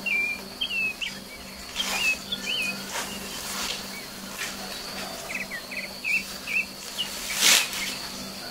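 Small birds chirping in short whistled notes with quick pitch slides, over a steady high insect buzz. A few brief noisy sounds break in, the loudest about seven and a half seconds in.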